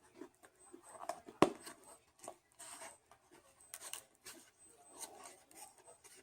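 Rustling and handling of fast-food paper packaging and sauce packets while eating, with one sharp click about a second and a half in.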